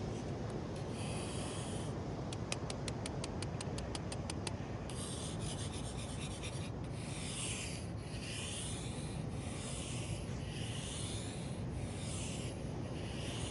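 Scratching and rubbing on sand: a quick run of short scratches at about six a second, then slower separate strokes about once a second, over a steady wash of small waves.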